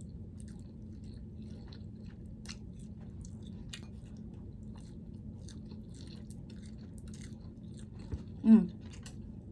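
Quiet chewing of food close to the microphone, with small wet mouth clicks, during a mukbang. Near the end comes one short, loud vocal sound that falls in pitch, like an appreciative "mm".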